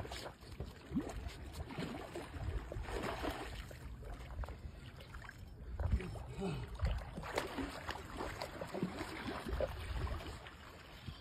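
Irregular water sloshing and splashing from a hooked redfish fighting near the surface, over a low rumble.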